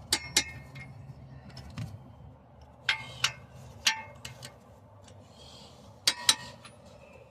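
Metal tools and parts clinking against each other: sharp ringing clinks, mostly in pairs, three or four times, over a low steady rumble.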